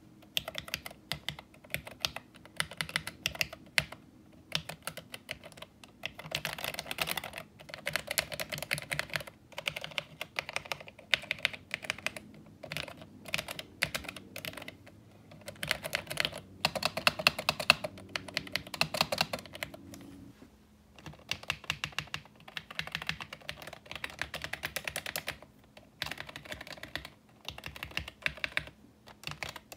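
Amiga 2000 computer keyboard being typed on, fast runs of key clicks and clacks broken by short pauses.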